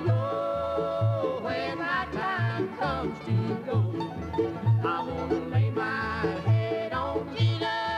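Bluegrass music played on banjo with a steady, even bass beat and a sliding lead melody, with no singing.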